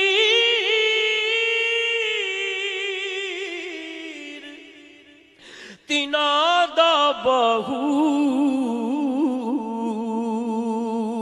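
Unaccompanied solo male voice singing a long, held, ornamented note that fades away about five seconds in; after a short breath a new phrase starts with quick wavering runs and settles on a lower held note.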